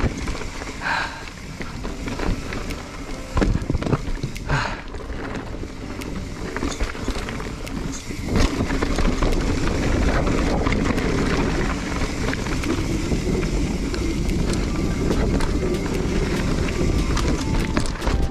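Mountain bike rolling fast down a dirt-and-gravel singletrack: a steady rush of tyre and trail noise with frequent knocks and rattles from the bike over rough ground. It grows louder and busier about eight seconds in.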